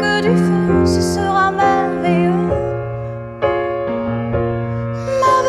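A woman singing to her own grand piano accompaniment. Her voice drops out about halfway, leaving held piano chords that change twice, and comes back in near the end.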